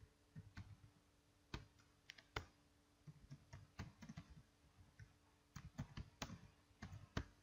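Computer keyboard being typed on: faint, irregular keystroke clicks, sometimes in quick runs.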